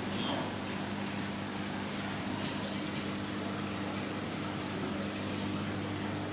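Steady hum and water rush of aquarium pumps and filtration, with an even hiss.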